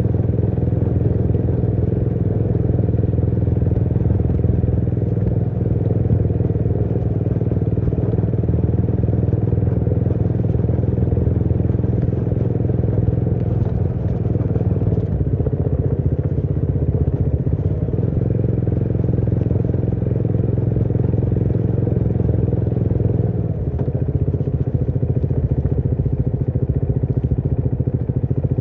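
Motorcycle engine running under way, steady, with the engine note changing a few times about midway and again later on.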